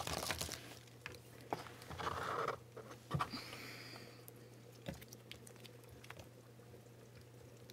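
Small plastic items being handled: a packet rustles, then scattered light clicks and taps as suction-cup air-tubing holders are set down on a table, growing sparser toward the end. A steady low hum runs underneath.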